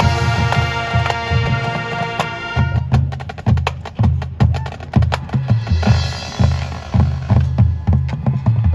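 High school marching band playing: wind instruments hold chords over drum hits, then about two and a half seconds in the winds drop back and the percussion takes over with a run of sharp drum hits over low bass notes.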